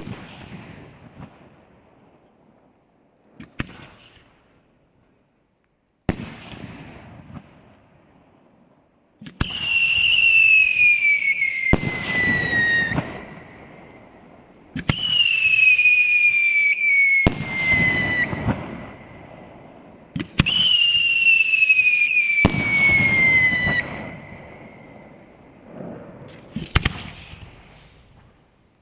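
Aerial fireworks shells bursting with sharp bangs. Three long whistles each fall slowly in pitch over two to three seconds, and a loud bang cuts across each one partway through.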